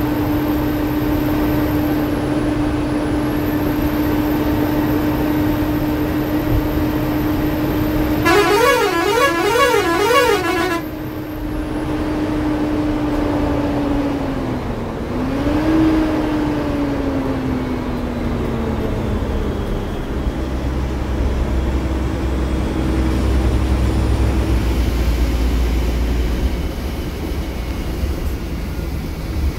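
Inside the cab of an Ashok Leyland AC sleeper bus: a steady whine from the bus runs over road noise, and about eight seconds in a warbling multi-tone horn sounds for two to three seconds, its pitch swinging up and down three times. Around halfway the whine dips, then falls away slowly as the bus slows, leaving a low rumble.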